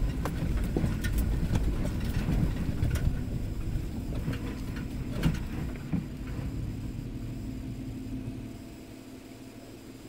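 Inside the cabin of a 2013 Toyota 4Runner SR5 crawling over a rough dirt trail: a steady low rumble from the truck, with frequent knocks and rattles as it works over the ruts, one louder knock about five seconds in. The rumble and knocks ease off over the last couple of seconds.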